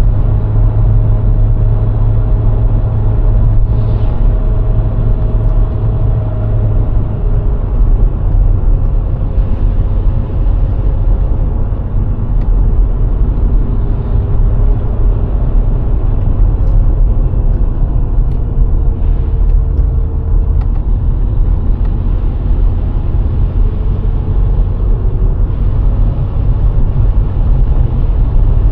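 VW Golf IV 1.6 driving steadily along a road: a constant low engine and road rumble, with a faint hum that drifts slowly up and down in pitch.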